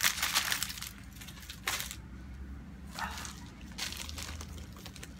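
Plastic packaging crinkling and rustling as a diamond painting canvas and its bagged drills are handled, pausing about two seconds in, then rustling again as a plastic-wrapped rolled canvas is picked up.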